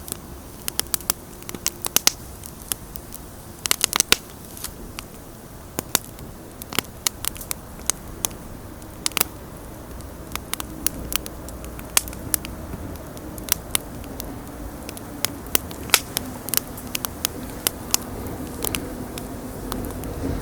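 Wood bonfire crackling and popping: irregular sharp snaps, sometimes in quick clusters, over a low steady rumble that grows a little louder in the second half.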